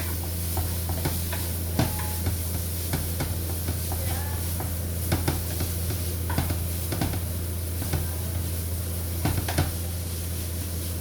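Stir-frying in a pan: a spatula scrapes and clinks against the metal at irregular moments over a steady sizzle of frying food. A constant low hum runs underneath.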